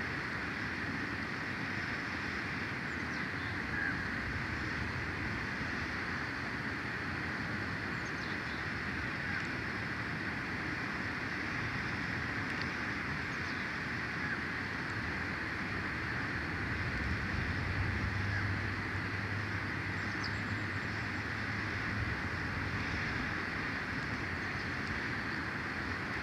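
Steady wind hiss through the pine treetop, with a few faint, short bird chirps. A low engine hum from far off swells for several seconds about two-thirds of the way through.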